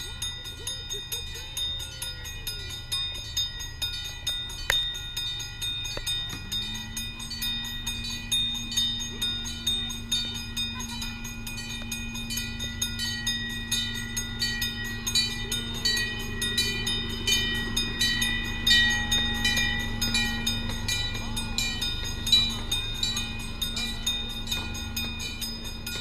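Railroad crossing bell dinging rapidly and evenly while a train runs through the crossing, its low rumble underneath. A steady low hum comes in about six seconds in and holds until near the end.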